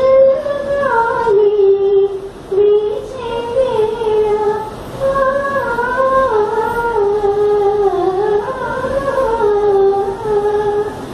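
A woman singing unaccompanied into a microphone, a high voice holding long notes that slide and bend between pitches, with short breaks between phrases.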